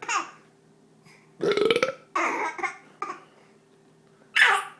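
A man burping loudly on command after drinking soda: one long burp about a second and a half in, followed by shorter sounds and another loud burst near the end.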